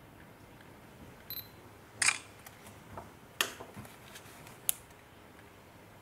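Canon PowerShot G12 compact camera taking test shots: a short high beep about a second in as focus locks, then the shutter sound a beat later, followed by another shutter-like click and a sharp button click near the end.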